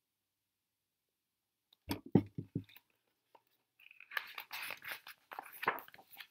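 Handling and page-turning of a large hardcover picture book: a few quick soft knocks about two seconds in, then the rustle and flap of a page being turned over.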